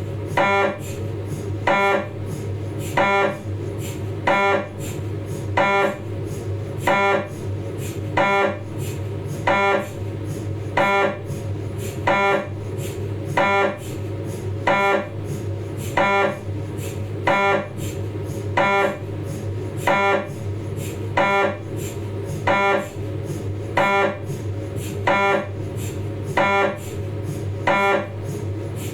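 Philips 1.5 T MRI scanner's gradient coils running a 3D T2-weighted sagittal spine sequence: a steady hum with a pitched, beeping pulse repeating evenly about once a second.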